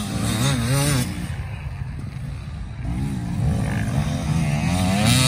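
Enduro dirt-bike engines revving on a race course, their pitch rising and falling with each throttle blip and gear change. The engines fade back for a couple of seconds about a second in, then pick up again louder toward the end.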